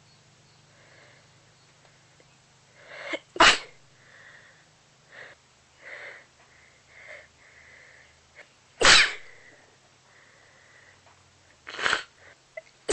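A person sneezing three times, each sneeze sudden and loud and a few seconds apart, in deliberately induced sneezes. Soft breaths come in between.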